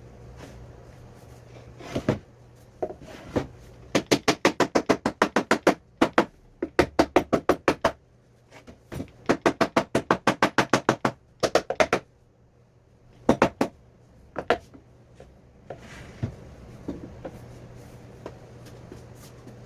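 Rapid runs of sharp knocks on wood, about six a second, in several bursts with short pauses and a few single knocks between.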